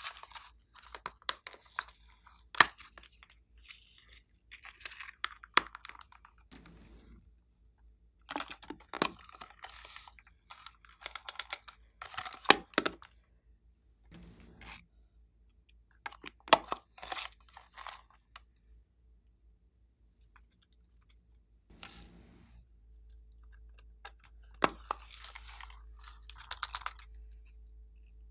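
Irregular bursts of clicking, crinkling and crackling from small slime add-ins being handled, with quiet gaps between: plastic containers knocked and handled, and glitter shaken out by hand. The loudest click comes right at the start.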